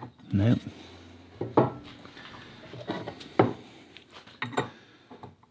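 Metal clinks and knocks of an old open-ended spanner being fitted to and worked against a nut on the cast gear of an antique post drill. The sharp clinks come at irregular intervals, about half a dozen in all.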